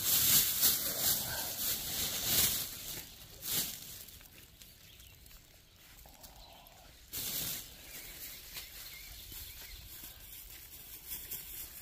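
A thin plastic shopping bag crinkling loudly in a run of bursts over the first few seconds, then quieter rustling and scraping of hands digging through soil and leaf litter to pull up wild leeks (ramps).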